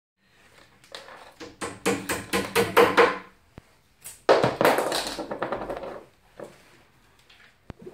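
A small hammer knocking on particleboard bed panels: a quick run of about eight blows, roughly four a second, then a rougher clatter lasting a couple of seconds.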